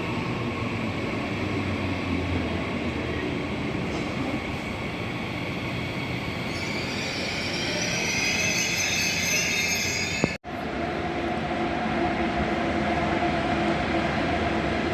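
Train moving through a station, its wheels squealing in high whining tones that build up about six to ten seconds in. About ten seconds in the sound cuts off abruptly for a moment, then resumes as a steadier train sound with a lower hum.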